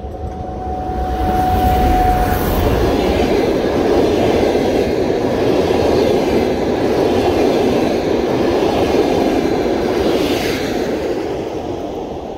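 Siemens ER20CF diesel-electric locomotive and its passenger coaches passing close at speed: a thin steady whine as the locomotive goes by in the first couple of seconds, then the loud continuous noise of coach wheels running on the rails, fading near the end.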